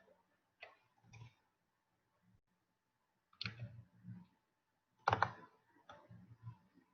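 Scattered clicks and light knocks of a computer mouse and keyboard being worked close to the microphone, a few irregular bursts with pauses between.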